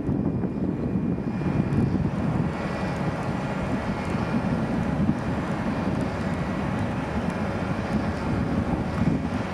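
Steady low rumble of wind buffeting the microphone outdoors, unbroken throughout.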